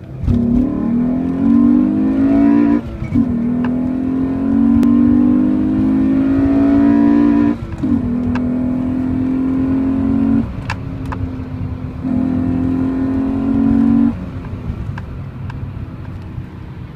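A car engine pulling hard through the gears: its pitch rises steadily, drops briefly at each shift about 3 and 7.5 seconds in, then holds steady for two spells with a short lull between them, and falls away near the end.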